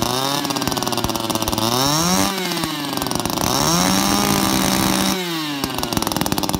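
Homelite ST-275 string-trimmer engine, a 25 cc two-stroke, running and revved twice: a short blip that peaks about two seconds in and drops straight back, then a second rev held high for about two seconds before falling back to a lower speed.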